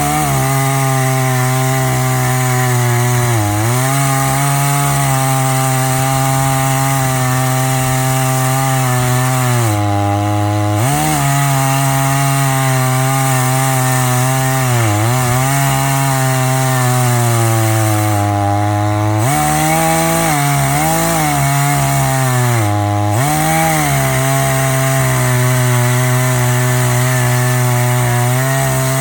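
Small budget two-stroke chainsaw in an Alaskan chainsaw mill, running at high revs through a log. Its engine note dips and recovers several times as it bogs under the load. It is struggling to cut, which the owner puts down to a possibly dull chain.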